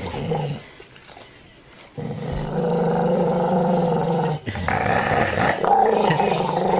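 Pit bull-type dog growling while guarding a chew stick: a short growl at the start, then after a quieter pause a long continuous growl from about two seconds in, broken once briefly about two-thirds of the way through.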